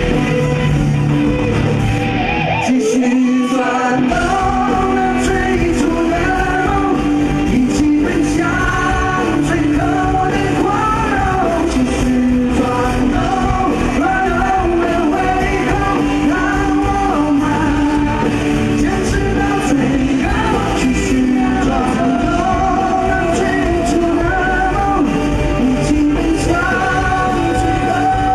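Live rock band playing loudly, with sung vocals over electric and acoustic guitars and drums in a large hall. About two and a half seconds in, the bass and drums drop out for a moment, then the full band comes back in.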